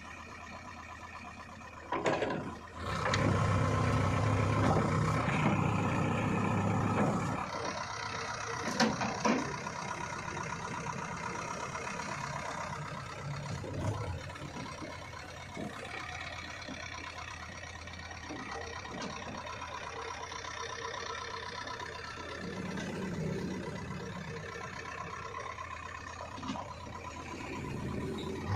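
JCB 3DX Xtra backhoe loader's diesel engine running under work, revving up loud about two seconds in for roughly five seconds, then settling to a steadier, lower level while the machine drives with a loaded front bucket. A couple of sharp knocks come about nine seconds in.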